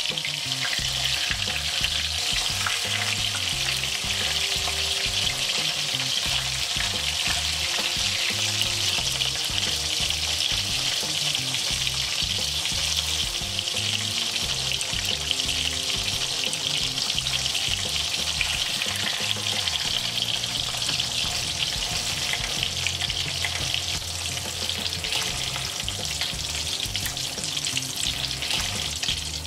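Gobhi pakoras (batter-coated cauliflower fritters) deep-frying in hot oil, a steady dense crackling sizzle, as they turn golden brown and crisp.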